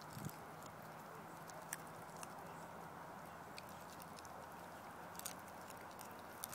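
Whippet-Bedlington cross puppy chewing a raw chicken wing: sparse sharp crunches and clicks of teeth on bone, over a low steady hum.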